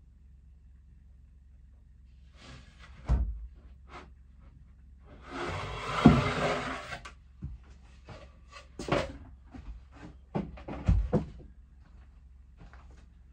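A wooden board knocking and scraping against a wooden staircase as it is handled. There is a knock about three seconds in, then a longer scrape of wood sliding on wood, then several more knocks and bumps as the board is moved away.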